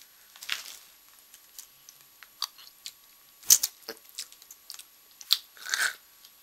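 Chewing and crunching on a dry snack: a run of scattered crisp crackles, the loudest about three and a half seconds in, with two longer rustling noises, one near the start and one near the end.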